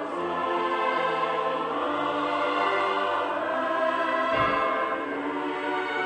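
Choral music: a choir singing slow, held chords that change gradually.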